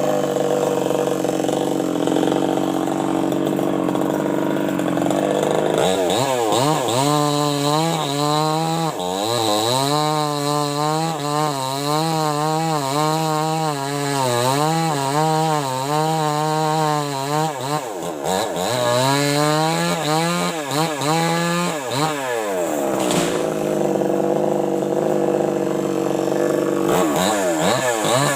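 New West 588 two-stroke chainsaw running at high revs, cutting wood. From about six seconds in until about twenty-two seconds its pitch wavers up and down over and over as the chain loads and frees in the cut; before and after that it runs at a steadier pitch.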